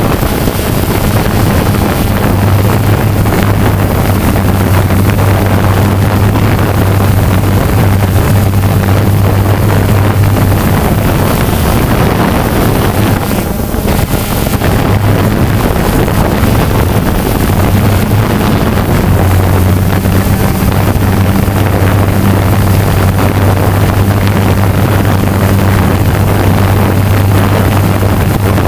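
Quadcopter drone's motors and propellers humming steadily, heard through the onboard camera together with rushing wind noise; the hum weakens briefly about halfway through.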